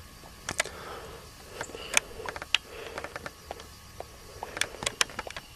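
Scattered soft clicks and short rustles at irregular intervals, a few close together about two seconds in and again near the end.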